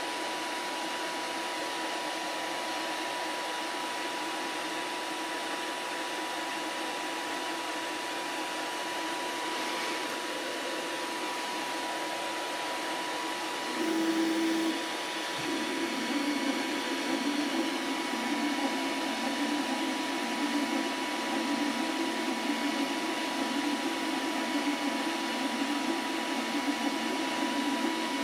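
Elegoo Neptune 4 Plus 3D printer: a steady whir of its fans with a thin steady tone. About halfway through, the stepper motors start with a brief louder hum, then a wavering, buzzing whine as the print head and bed begin moving to print.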